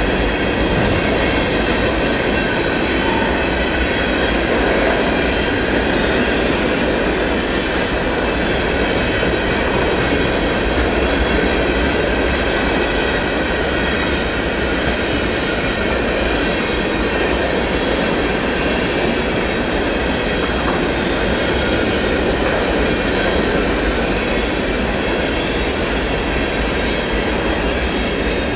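Freight train cars rolling past: a steady rumble and rattle of steel wheels on rail, with faint high-pitched wheel squeal held over it.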